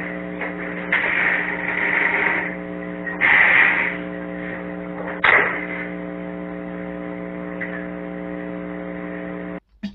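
Steady electrical hum with a stack of evenly spaced overtones, as on a security camera's narrow-band audio. Bursts of noise come about a second in and, louder, a little after three seconds, and a sharp knock comes a little after five seconds. The sound cuts off just before the end.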